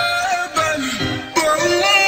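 A song with a high sung voice holding long notes and sliding between pitches, the line breaking off twice.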